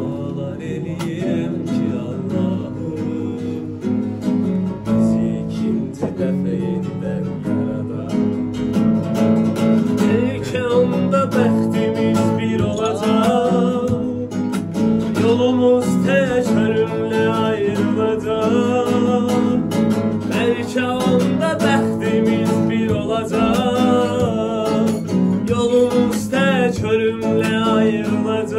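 A man singing in Azerbaijani to his own strummed acoustic guitar. The guitar chords run throughout, and the singing voice comes in more strongly about a third of the way in.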